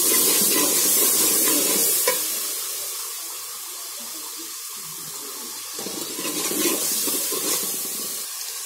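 Spiced masala with green chillies and garlic sizzling in oil in a metal pot while a metal ladle stirs and scrapes through it. The sizzle is loudest for the first two seconds, dies down in the middle and rises again about six seconds in, with a sharp clink of the ladle against the pot about two seconds in.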